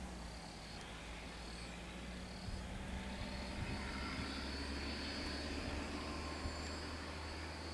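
Vehicle engine running steadily at idle, a low, even drone, with a faint steady high-pitched drone above it.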